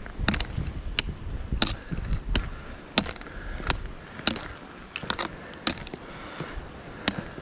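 A hiker walking on a rocky dirt trail: footsteps crunching and thudding, with sharp clicks about one every two-thirds of a second from trekking-pole tips striking stone.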